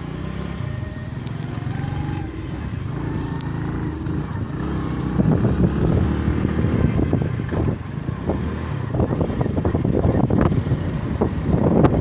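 Motorcycle engine running as it is ridden, heard from on the bike, with wind buffeting the microphone in gusts from about five seconds in.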